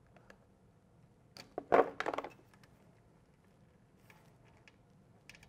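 Plastic turn-signal wiring connectors being pried and pulled apart by hand: a short cluster of clicks and scraping about a second and a half in, then a few faint ticks.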